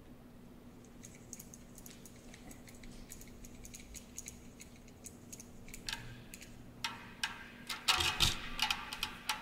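Irregular clicking and ticking of small hard objects, with a faint metallic ring. It starts sparse and grows denser and louder from about six seconds in.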